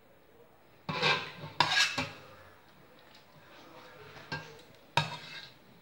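A ladle clinking and knocking against a steel cooking pot and a clay serving dish while vegetable broth is ladled over barley couscous: several sharp clinks, a cluster around the first two seconds and two more near the end.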